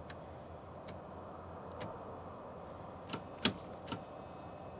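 A few light, scattered clicks and ticks over a steady low background hum, the sharpest click about three and a half seconds in.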